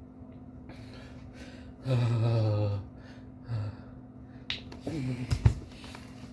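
A man's breathing sounds while drinking sparkling water: breathy gasps, then a loud, low groan held for just under a second about two seconds in, a shorter one after it, and more gasps with sharp clicks near the end.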